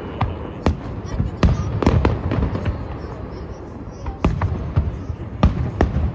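Aerial firework shells bursting: a string of sharp bangs at irregular intervals, some close together, with a low rumble between them.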